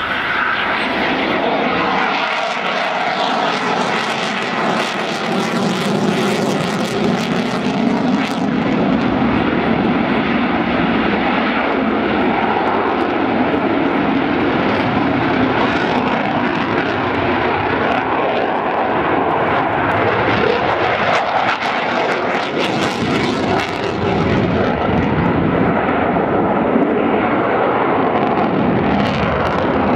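Eurofighter Typhoon's twin EJ200 turbofan jet engines running loud and steady as the jet flies overhead, the tone sweeping slowly down and back up as it passes.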